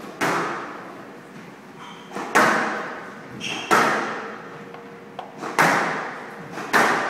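Squash ball being struck back and forth in a rally: five loud, sharp cracks of racket on ball and ball off the walls, about one every second and a half, each echoing in the hall.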